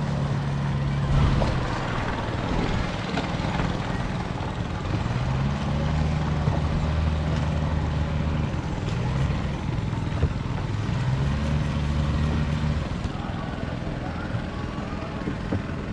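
A small engine running with a steady drone whose pitch shifts a little now and then, stopping near the end.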